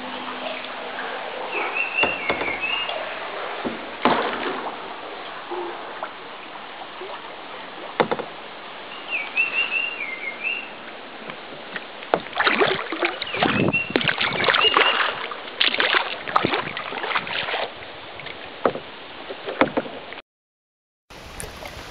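Kayak paddle strokes splashing and river water rippling around the hull, the strokes coming thick in the second half. A small bird sings a short warbled phrase three times. The sound cuts out briefly near the end.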